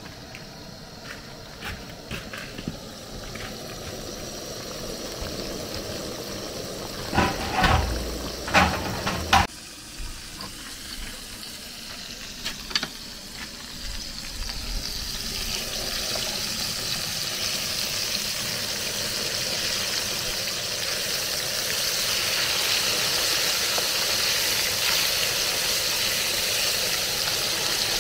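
Croaker fish frying in hot oil, a steady sizzle that grows louder through the second half. A few loud knocks and clatters come about seven to nine seconds in.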